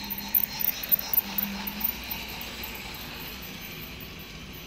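Toy train running along plastic track, its wheels and wagons giving a burst of sharp clicks and rattles in the first two seconds, then a steady rattle as the freight wagons pass close by.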